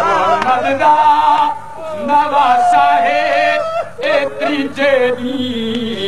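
A man chanting a sung lament in long, wavering held notes that bend up and down: a zakir's melodic recitation of a Karbala elegy.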